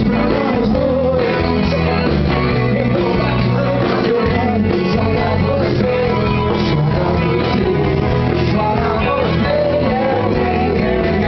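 Rock band playing live, with electric guitar and a lead vocal singing over a steady band backing.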